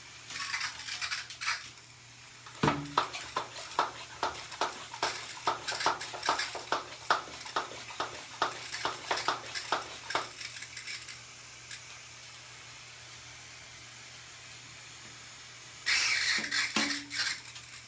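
Hand spray bottle misting a pet bird for a bath: quick squirts, about two or three a second for several seconds, then another short run near the end.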